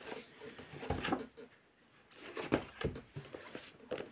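Paperback books being handled and shifted on a woven mat: soft rustles of the covers and a few dull knocks, in short bursts about a second in, around two and a half seconds and near the end.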